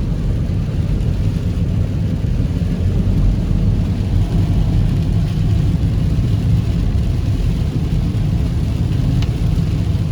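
Moving car in heavy rain: a steady low road-and-engine rumble with a fainter hiss of rain and spray over it.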